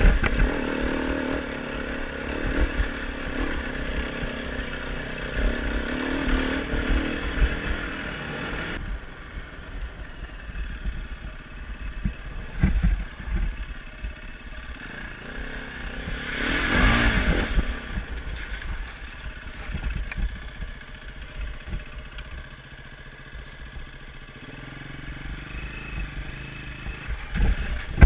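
Dirt bike engine running and revving as the bike is ridden over a rough trail, with clattering knocks from the bumps. The sound changes abruptly about nine seconds in, and there is a louder burst of revving around the middle.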